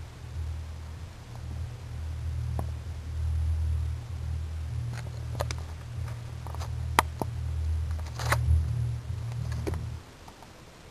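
Camera handling noise: a low rumble with scattered clicks and knocks, the sharpest about seven seconds in. The rumble stops about a second before the end.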